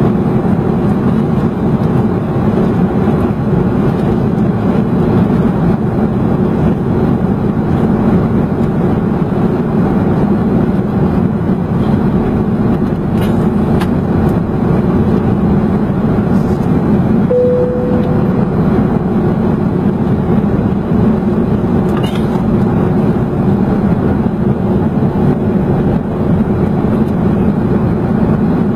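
Steady low rush of engine and airflow noise inside an airliner cabin during descent. A brief single tone sounds about two-thirds of the way through.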